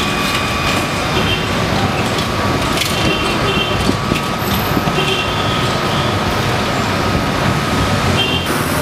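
Busy street ambience: steady traffic noise from vehicle engines, with a thin steady high whine that stops near the end.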